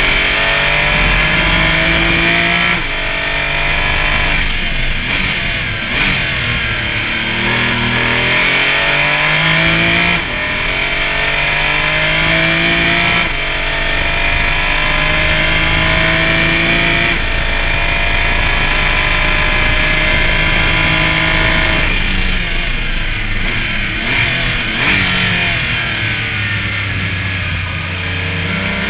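Porsche Cayman race car engine under hard acceleration. The note climbs in pitch and drops sharply every few seconds as it shifts through the gears, and runs rougher and less even near the end.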